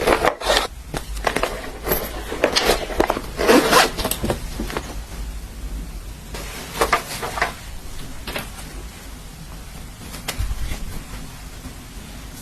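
Irregular scraping and rustling handling noises while eating, such as a utensil scraping a bowl. They come thickly for the first few seconds, then only now and then.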